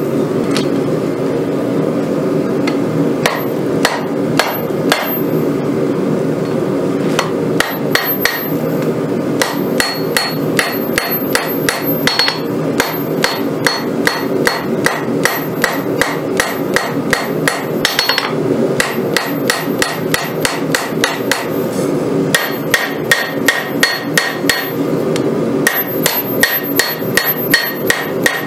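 Hand hammer striking a red-hot san mai Damascus Bowie blade on a steel anvil, in quick runs of about three blows a second, each blow ringing off the anvil. A steady roar runs underneath.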